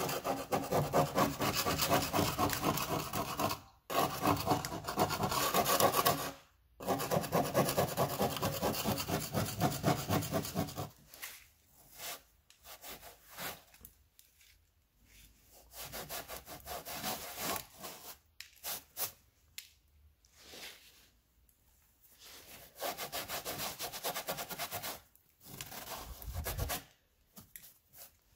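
Screwdriver tip scraping rust off a car's steel sill in rapid rasping strokes, with two brief pauses, stopping about eleven seconds in. After that, softer, intermittent rubbing as a cloth wipes the scraped patch.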